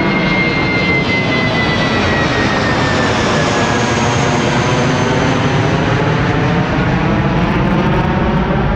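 Airbus A320-232's twin IAE V2500 turbofan engines at take-off thrust as the airliner climbs away: a loud, steady jet noise with a high whine that slides down in pitch over the first four seconds.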